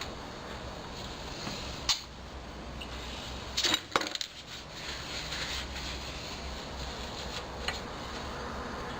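Metal clinks and clatters of tools and engine parts being handled on a workbench during an engine teardown: one sharp clink about two seconds in, a short cluster of clatters near the middle, and a lighter clink near the end.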